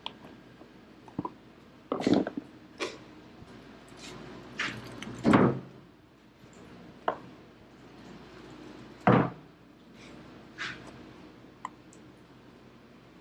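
Scattered knocks and thuds, about eight of them, with the loudest at about two, five and nine seconds in: feta blocks, a knife and plastic pickle containers being handled and set down while the drained cheese is cut and packed.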